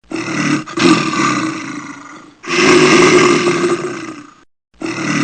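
Big cat roaring: three long roars, each one fading away, with the third starting near the end.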